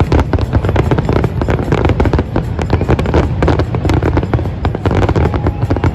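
Fireworks display going off: a dense, rapid run of bangs and crackling over a constant low rumble of launches and explosions.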